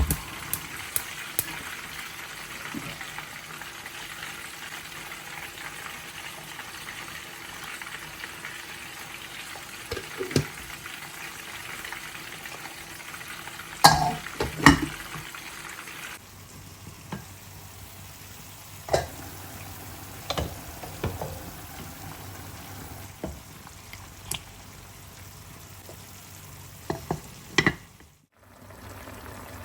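Food sizzling as it fries in a pan, with sharp clinks and knocks of a utensil against the pan. About halfway through the sizzle falls away, leaving scattered clinks and knocks over a quieter background.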